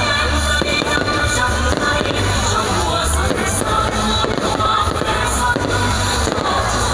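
Fireworks going off in a crowded display, popping and crackling over loud music with a pulsing bass beat.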